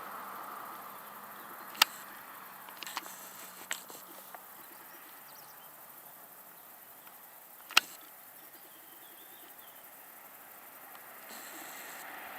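Quiet outdoor background with distant jet aircraft noise fading out, then starting to swell again near the end. Faint bird chirps, and a few sharp clicks, the loudest about two-thirds of the way through.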